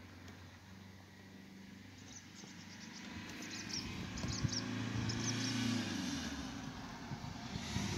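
Engine hum of a passing vehicle, swelling to a peak a little past the middle and then fading. A bird chirps several times over it.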